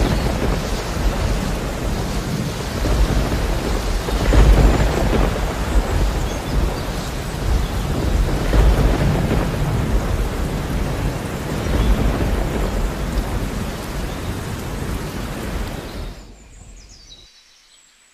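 Steady rain with rolling thunder, deep rumbles swelling about every four seconds. The rain stops abruptly near the end, and the last low rumble dies away a moment later.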